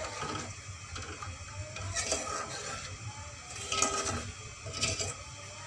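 Metal spoon stirring thick rabri in a metal pot, scraping against the pot's sides and bottom, with a few louder scrapes about two, four and five seconds in.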